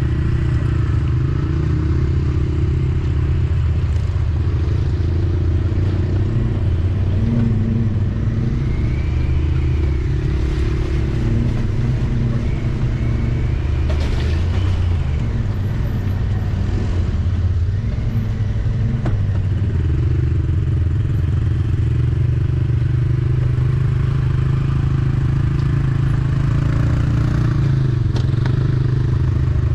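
Off-road vehicle engine running steadily at low trail speed over a rough, muddy track, with a few knocks and clatters from the bumpy ground.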